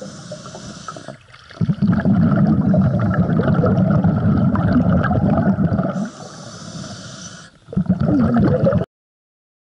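Scuba diver breathing through a regulator underwater: a hiss on the inhale, then a long bubbling exhale, a second inhale hiss and more exhaled bubbles, before the sound cuts off abruptly near the end.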